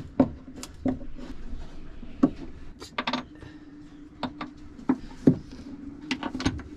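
Hand tools working a stuck nut on a through-bolt: irregular metallic clicks and knocks as a spanner is set and turned, over a faint steady hum.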